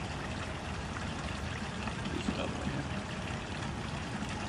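Steady trickling of running water, with one small tap about halfway through.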